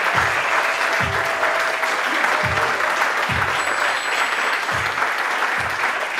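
Audience applauding steadily, with music playing underneath: a low beat strikes about once a second.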